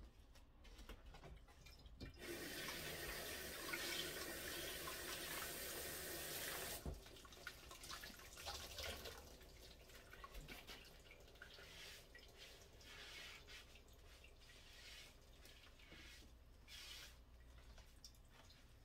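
Kitchen tap turned on about two seconds in, water running steadily into the sink for four or five seconds, then shut off abruptly. After that there are only light clicks and knocks.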